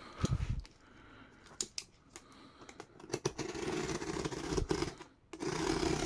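Objects being handled and shifted on a surface: scattered clicks and knocks with stretches of scraping and rustling.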